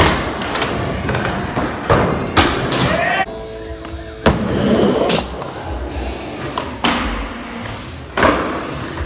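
Skateboard riding: wheels rolling with a steady rumble, broken by a series of sharp thumps and slams as the boards hit and land.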